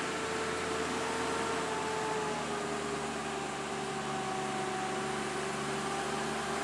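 Loaded Volvo 440 truck's diesel engine pulling steadily in a low gear as the truck crawls uphill. Its drone carries a held whine that sags slightly in pitch.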